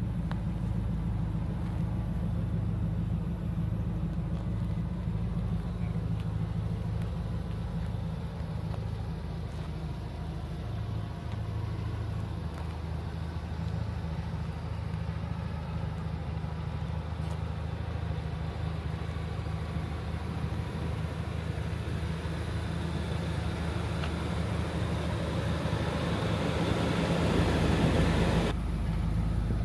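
2001 Ford SVT Lightning's supercharged 5.4-litre V8 idling steadily.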